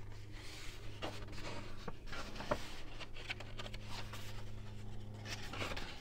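Pages of a book being leafed through: soft paper rustles and light handling noises. A steady low hum runs underneath and stops near the end.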